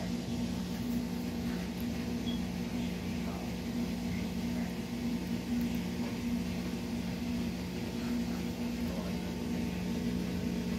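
Whirlpool top-loading washing machine running with a steady low hum, its load running a little off balance.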